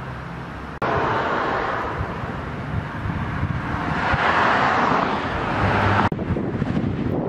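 Outdoor road traffic noise: a steady hiss of passing vehicles that swells around the middle, with sudden jumps in level about a second in and again near the end where the recording is cut.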